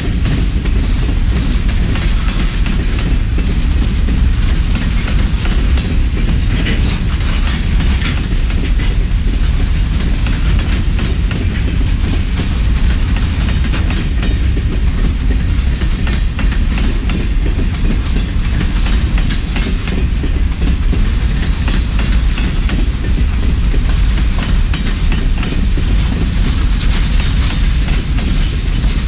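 A freight train of empty coal cars rolling past, a steady low rumble with a continual irregular clatter of wheel clicks over the rails.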